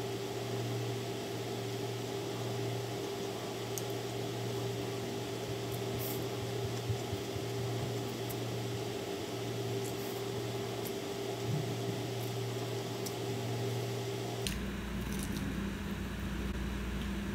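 Steady background hum with a few faint clicks and mouth sounds from eating noodles with chopsticks. Near the end the hum abruptly changes to a lower drone.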